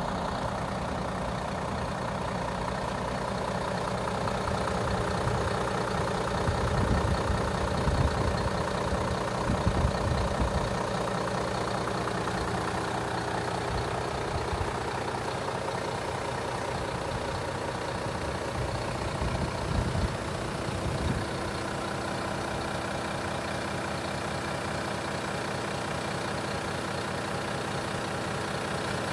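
Volvo FM450 tractor unit's 13-litre six-cylinder diesel idling steadily. A few brief, louder low rumbles come through about a quarter of the way in and again about two-thirds of the way in.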